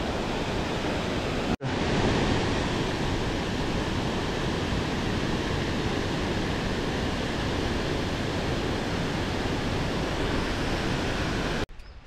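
Steady rushing of a tall waterfall, about a 30 m drop, heard as an even roar. It breaks off for an instant about one and a half seconds in and stops abruptly near the end.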